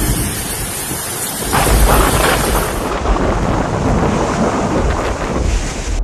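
Storm noise: heavy wind and rain with a deep rumble, loud throughout. The sound changes abruptly about a second and a half in and again about three seconds in.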